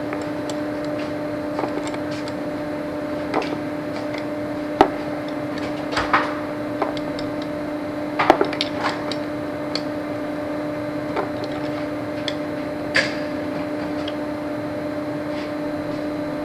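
Irregular sharp clicks and knocks of metal hand tools being worked and put down, likely a wrench tightening battery terminal bolts and tools being gathered up, over a steady hum.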